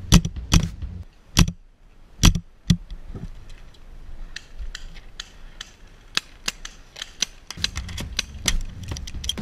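Paintball marker shots: five loud, sharp shots close by in the first three seconds, from the RAP4 468 marker firing First Strike rounds, then a quick string of fainter pops from markers firing across the field. A low rumble sits under the first second and the last two.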